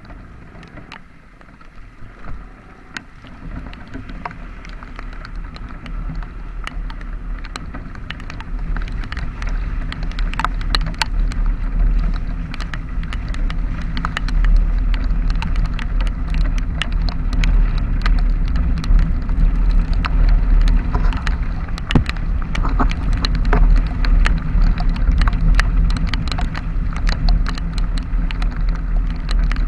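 Riding at speed in the rain: a low rush of wind and road noise builds up over the first half and then holds steady, with raindrops ticking sharply and irregularly against the microphone throughout.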